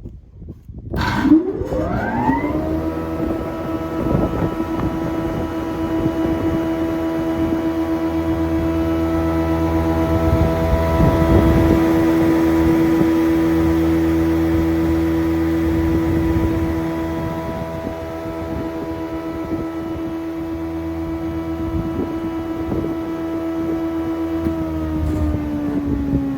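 JAROMA DSVA-40 jointer switched on with a click about a second in. Its 4 kW motor and four-knife cutterhead spin up with a rising whine to a steady running hum. Wood being planed across the cutterhead makes it louder through the middle, and near the end the whine starts to drop in pitch as the machine is switched off and coasts down.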